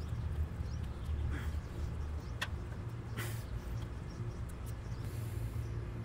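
Steady low background rumble, with a few faint clicks about two and a half and three seconds in as thin wires are twisted together by hand.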